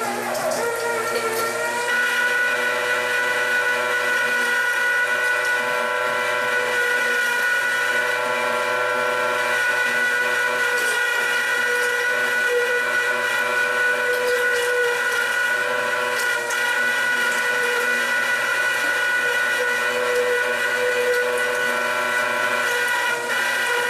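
Electric meat grinder's motor running with a steady whine while grinding venison and beef brisket on the first, coarse grind. Its pitch dips briefly near the start.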